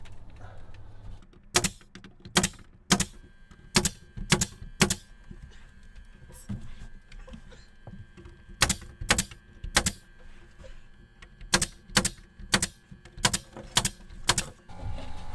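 Pneumatic nailer firing nails through cedar ceiling boards into the framing overhead: about fifteen sharp shots in three runs, each shot about half a second after the last.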